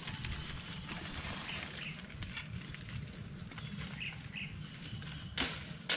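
Leaves and brush rustling and crackling as someone moves and handles things in dense forest undergrowth, with one louder, brief crackle near the end.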